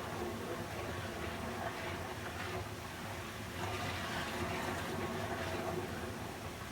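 Flowing water rushing steadily, a continuous hiss that swells and eases a little every second or two, with a faint low hum underneath.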